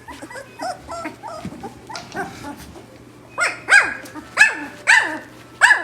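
Dog barking: faint short calls at first, then a run of about six loud, high yelping barks roughly half a second apart, each dropping in pitch.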